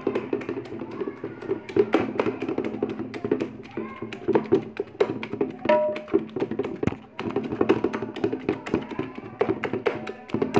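Wooden spoon tapping and knocking against a metal cooking pot, several irregular sharp taps a second, as cooked mustard greens are stirred and mashed. Background music runs underneath.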